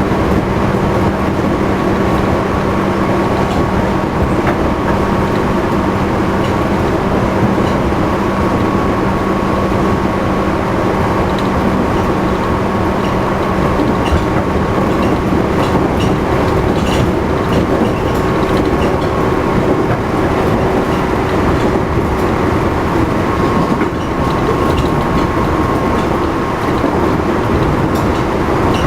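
JR East 211 series electric train running at speed, heard from inside the motor car: a steady traction-motor and cooling-fan whine over wheel rumble and rail-joint clickety-clack. The uploader labels this car as one with an abnormal motor noise. A low steady hum drops out about halfway through.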